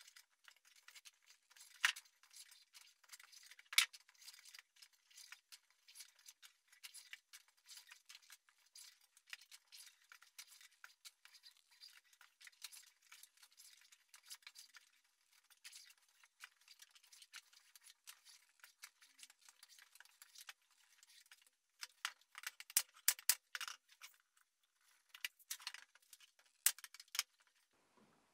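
Braided rope rubbing and rustling against wood as it is pulled tight and wound around a wooden handle: a thin, quiet run of small scrapes and ticks, with a few louder clusters of them near the end.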